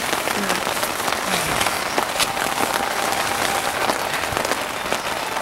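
Steady rain falling on a nylon tent, a dense crackle of drops hitting the fabric.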